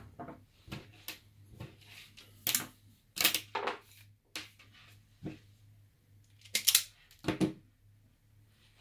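A few sharp clicks and light knocks of small hard objects being handled, scattered irregularly, the loudest pair about two-thirds of the way through, over a faint steady low hum.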